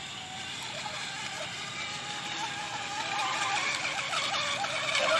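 Radio-controlled speedboat running flat out across open water: a wavering motor whine with the hiss of its spray, growing louder toward the end.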